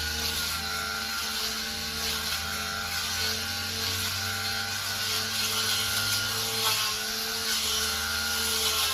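Battery-powered 60 V brush cutter's electric motor running steadily with a whine, its pitch dipping slightly now and then.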